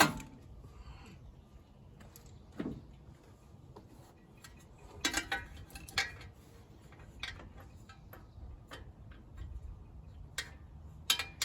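Scattered small metal clicks and clinks of a spark plug and socket wrench being handled while the cleaned plug is fitted back into the riding mower's engine: one sharp click at the start, a quick run of clinks about five seconds in and another near the end.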